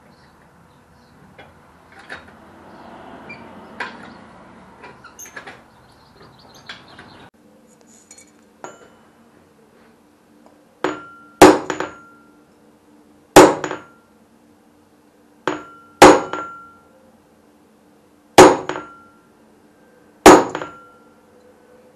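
Hand hammer striking a steel punch held on a piece of thin iron sheet resting on a round steel block. There are five double blows about every two and a half seconds, each a light tap and then a hard, ringing strike. Before them come softer clicks and scraping of metal worked by hand.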